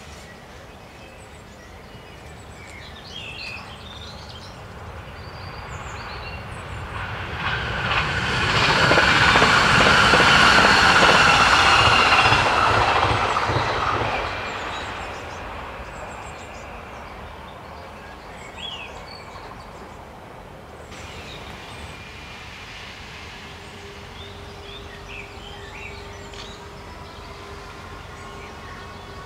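A vehicle passes by, swelling over a few seconds to its loudest around the middle and then fading away. Birds chirp throughout, and near the end faint rising whines begin.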